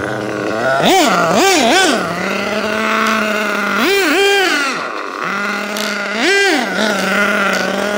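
Losi 8IGHT-T 1/8-scale nitro truggy's glow engine running, settling back to a steady hum between quick throttle blips: three short revs about a second in, two around four seconds in and one more around six and a half seconds in.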